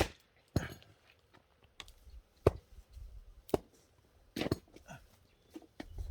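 Axe blows splitting firewood: a run of sharp knocks, the loudest right at the start and four more spaced about a second apart.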